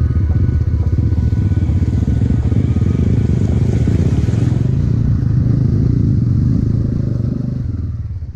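Mahindra Mojo's single-cylinder engine running steadily on the move, with a dense low exhaust beat that eases off a little near the end.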